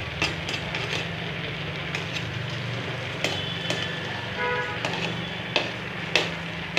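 A metal ladle stirring rice boiling in an aluminium pot: irregular clicks and scrapes of the ladle against the pot over a steady bubbling hiss.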